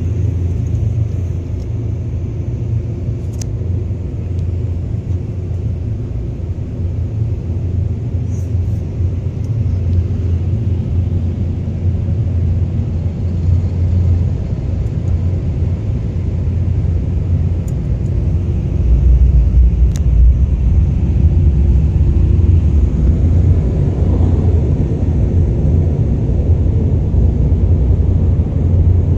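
Ryko SoftGloss XS 2 in-bay car wash gantry running, heard from inside the car as a steady low rumble that grows louder about twenty seconds in.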